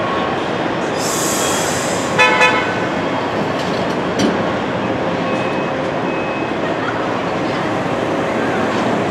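A train running with a steady rumble. About a second in there is a hiss, and a little after two seconds in a horn gives two short toots.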